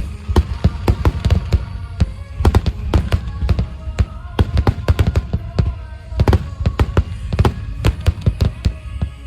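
Aerial firework shells bursting in rapid volleys, many sharp bangs a second over a deep continuous rumble, with music playing underneath.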